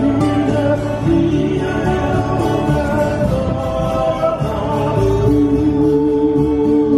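Live trio music on electric bass, acoustic guitar and ukulele, amplified through stage speakers, with sung vocals and long held notes in the second half.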